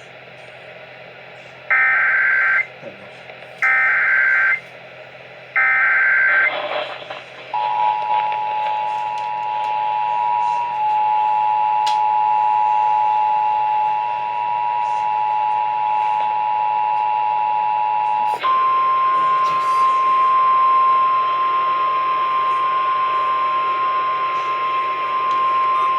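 Emergency Alert System sequence over NOAA Weather Radio: three short bursts of digital header data about a second apart, then the two-note EAS attention tone held for about eleven seconds, then a single steady weather radio alarm tone for about eight seconds.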